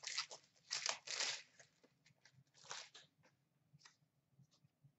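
Trading card packs and cards being handled: a few short rustles, the strongest in the first second and a half, then sparser faint ticks.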